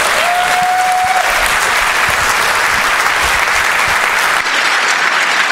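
Audience applauding steadily after a talk, dense even clapping.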